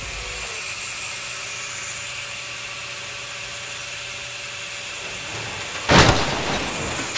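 Angle grinder with a cutoff wheel running steadily as it cuts a carbon-fibre sheet. About six seconds in there is a sudden loud burst, the loudest thing here, which fades over about a second.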